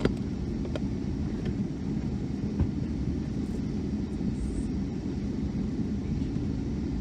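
Steady low rumble inside a Boeing 757-200 cabin with the engines at a constant setting as the airliner taxis, with a few faint clicks.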